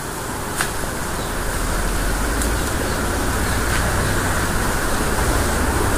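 Steady background noise with a low hum underneath and a few faint clicks.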